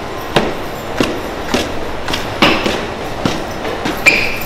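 Footsteps of several people climbing stairs, a sharp step about every half second or so, with a short high squeak about four seconds in.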